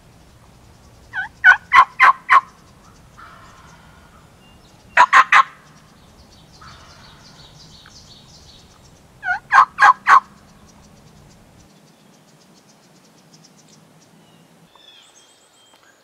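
Eastern wild turkey gobbler gobbling three times, loud and close, each gobble a quick rattling burst, about a second in, five seconds in and nine seconds in.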